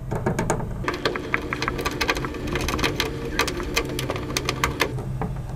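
A Phillips head screw being driven by hand with a screwdriver into the side panel of an UP Box 3D printer: a run of small, irregular clicks and scrapes from the screwdriver and the screw.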